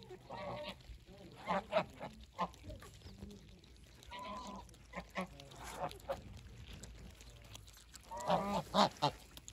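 Domestic geese honking in short, scattered calls while feeding, with a louder run of honks near the end.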